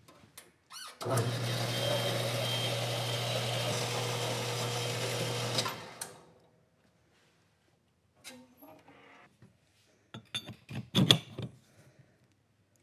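Electric shop power tool running for about five seconds, a steady hum under a dense hiss, then switched off and winding down. Near the end, a few knocks and clinks of metal parts being handled.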